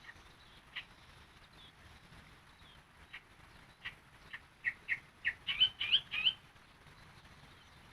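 Yellow-vented bulbul (trucukan) singing: a few short, scattered notes, then a quick run of loud notes from about four and a half to six and a half seconds in.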